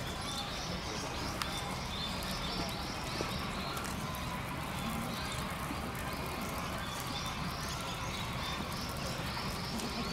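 Outdoor ambience: a steady low rumble with small birds chirping in short runs of quick high calls, several times.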